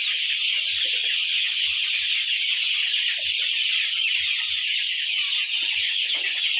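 A pen of young chickens: a steady shrill chorus throughout, with scattered soft low thumps.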